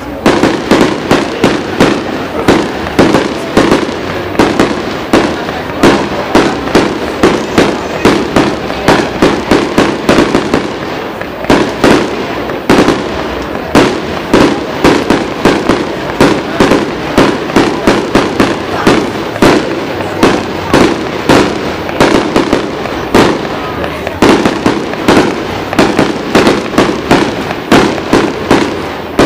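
Fireworks display: a continuous barrage of bangs and crackling, several reports a second without a pause.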